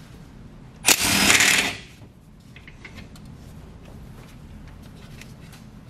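Cordless impact wrench (Milwaukee Fuel) hammering in one burst of about a second, breaking loose a brake master cylinder mounting nut. A few faint light clicks follow.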